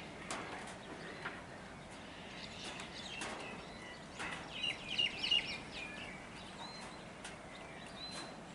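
Birds chirping outdoors: a cluster of quick, high chirps about halfway through, then a few short calls near the end, over a faint steady outdoor background.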